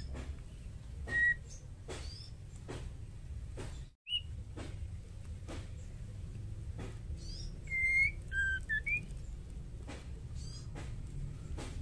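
Female white-rumped shama giving sparse short whistled calls: a single note about a second in, another just after four seconds, and a quick run of three or four notes around eight seconds, over a steady low hum and faint regular ticks.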